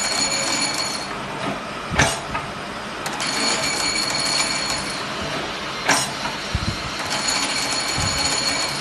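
Automatic heat-cutting machine for fabric strap running through its cycle: a high whine that comes and goes, and a sharp clack twice, about four seconds apart, as it cuts.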